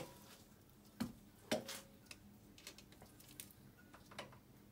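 Faint, irregular metallic clicks: two louder ones about a second in, then several fainter ones. They come from the exhaust-valve rocker arm of a 125 cc ATV engine being moved by hand to feel its valve clearance.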